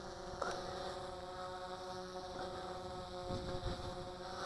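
Simtoo Dragonfly Pro quadcopter descending overhead, its motors and propellers giving a steady hum of several fixed tones, with one light click about half a second in.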